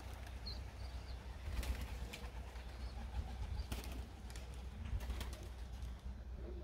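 Domestic pigeons cooing faintly, with a few sharp clicks scattered through and a low steady rumble underneath.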